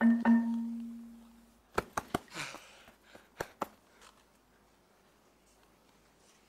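A comic metallic ring as a gendarme's head is tapped: a low, bell-like tone struck twice in quick succession and dying away over about a second and a half. A few sharp knocks follow a couple of seconds later.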